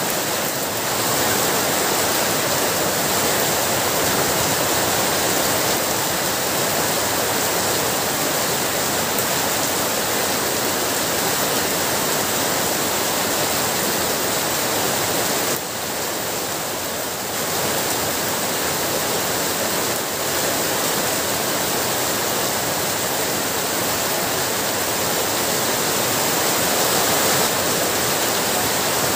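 Heavy rain falling steadily, an even dense hiss that eases slightly for a moment about halfway through.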